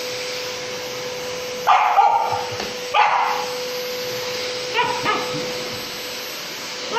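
Samoyed barking at a running vacuum cleaner: three barks, two full ones about a second apart and a shorter, higher one near the middle, over the vacuum's steady hum and hiss.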